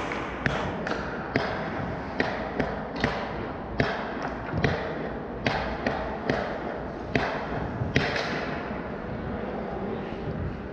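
Ice hockey pucks and sticks knocking, with sharp cracks of pucks striking sticks and boards. There are about a dozen uneven knocks over several seconds, over the steady hum of the rink, and then they stop.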